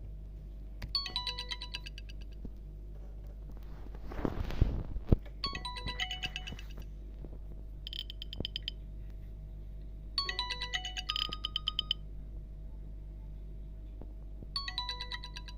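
An Alcatel OneTouch 2005D ringtone played through a Nokia Asha 300's loudspeaker: a short phrase of quick, bright electronic beep notes that repeats about every four and a half seconds. Just before the middle there is a brief rushing noise with two sharp clicks, louder than the tone.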